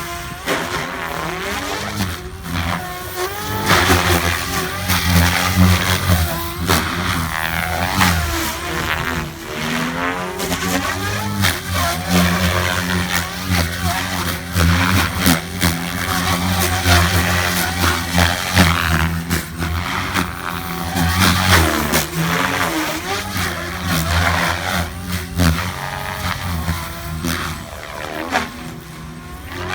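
Goblin 570 Sport electric RC helicopter, with its Xnova Lightning motor, in aerobatic flight: the motor and rotor whine keeps rising and falling in pitch over a steady low rotor hum.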